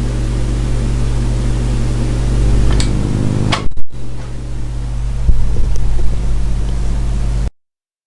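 Television static hiss over a low electrical hum. About three and a half seconds in come clicks and a brief dropout as the set is switched, then the hiss returns with a softer hum. The sound cuts off abruptly about seven and a half seconds in.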